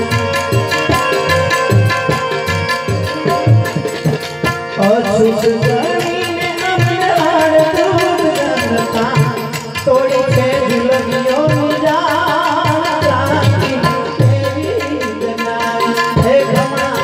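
Live Gujarati santvani devotional music: tabla drumming in a steady rhythm under a harmonium, with a man singing a wavering melody over a PA.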